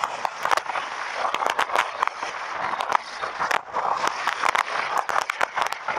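Wind rushing and buffeting over an action camera's microphone while riding along a road, with frequent crackles and pops.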